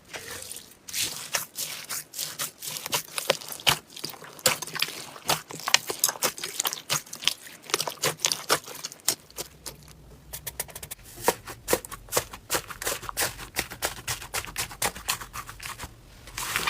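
Slime being worked by hand, giving off rapid, irregular small crackles and pops, with a brief pause about ten seconds in.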